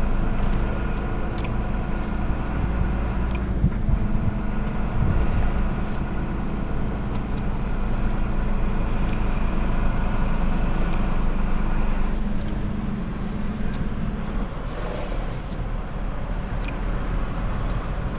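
Truck engine running at low speed, heard from inside the cab as the lorry rolls slowly; about three-quarters of the way through the engine note drops, and a short hiss follows.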